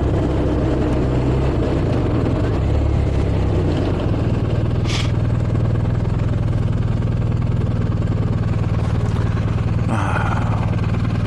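Motorcycle engine running under way, with steady road and wind noise; the engine note changes about four seconds in and then holds steady. A brief high chirp comes about five seconds in.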